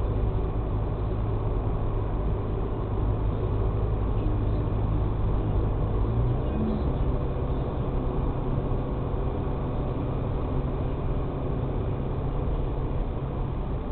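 Car driving, heard from inside the cabin: a steady low drone of engine and road noise, whose engine note shifts about six seconds in.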